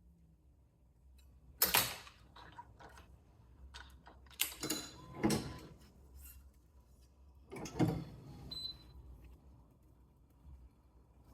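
A handful of separate clicks, knocks and short rattles from restringing a badminton racquet: string, clamps and tools being handled, with the sharpest knocks about a second and a half in and again near eight seconds.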